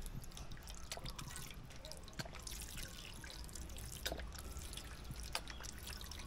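Soy sauce squirted from a plastic squeeze bottle into oily sauce in a stainless steel pan: faint dribbling and dripping, with a few sharp little ticks scattered through.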